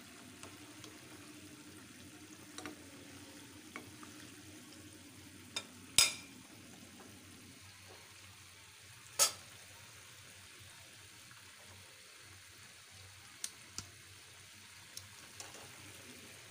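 Chicken pieces deep-frying in a pan of hot oil with a steady sizzle. A spatula clicks against the pan now and then, with two much louder clacks around the middle.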